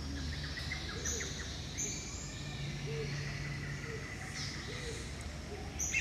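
Rainforest birds calling over one another: scattered high chirps and whistles, and a low swooping note repeated about every second and a half, over a steady low hum.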